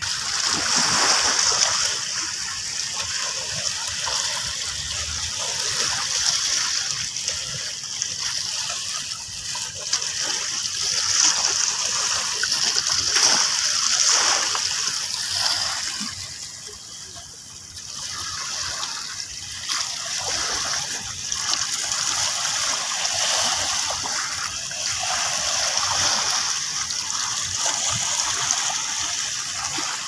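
Small sea waves washing and splashing over flat shoreline rocks, with water swirling and trickling off them. The sound swells and eases with each wash, and drops to a brief lull about halfway through.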